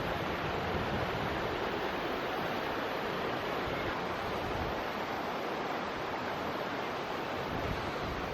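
Small stream running steadily, an even rushing of water.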